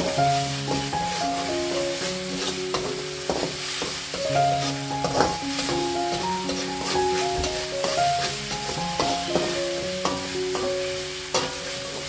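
Ground chili, shallot and garlic spice paste sizzling in a wok while a metal spatula stirs and scrapes it against the pan, with frequent short scraping clicks. The paste is being sautéed until cooked and no longer raw-smelling.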